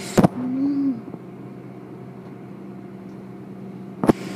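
Car wash machinery running with a steady hum. There is a sharp click just after the start and another near the end, and a short low wavering tone follows the first click.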